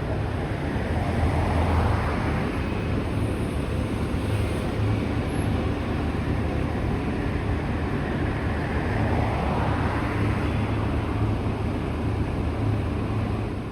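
Demolition excavator's diesel engine running under load, with two swells as it works its hydraulics. There are no distinct crunching impacts.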